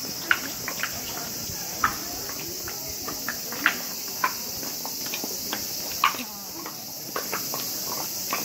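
Scattered sharp taps and clicks at irregular intervals, over a steady high-pitched drone: footsteps and ambience of people walking.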